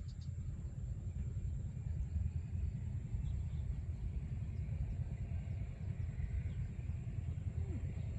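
Wind buffeting the microphone: a steady low rumble with no pitch to it.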